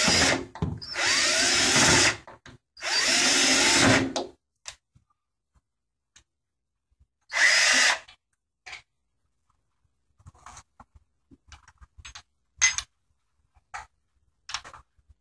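Cordless drill-driver driving self-tapping screws through a window sash lock into a vinyl sash, running in short bursts: three runs of about a second in the first four seconds and one more near eight seconds. After that, a few faint clicks and taps.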